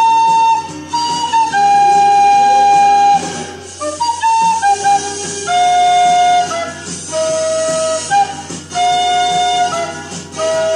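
White plastic soprano recorder playing a slow melody of clear held notes, some lasting over a second, stepping between pitches with short breaks for breath.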